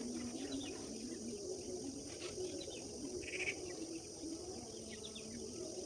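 Small birds chirping and calling over a steady, high insect chirring, with a brief, louder run of chirps about three seconds in.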